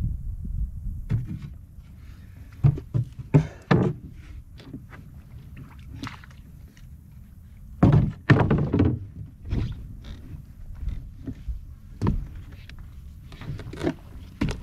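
Irregular thumps and knocks, loudest in two clusters (a few seconds in and about halfway through), over a steady low rumble.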